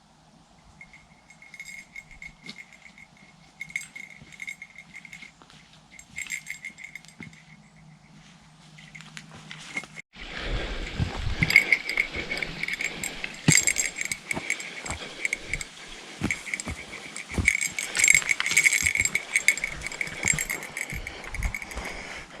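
Walking footsteps on a forest trail with a small metallic jingling keeping time. The sound is faint at first; after a sudden break about ten seconds in, the steps are louder and closer, crunching, with the jingle continuing.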